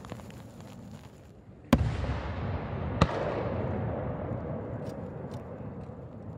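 Aerial firework shells bursting: two sharp bangs about a second and a half apart, the second a little under two seconds in, each followed by a long rumbling echo that slowly fades, with a few faint crackles near the end.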